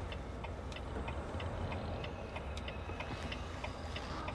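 Semi truck's turn-signal flasher ticking steadily, about three clicks a second in on-off pairs, over the low, steady rumble of the truck's engine heard inside the cab during a right turn.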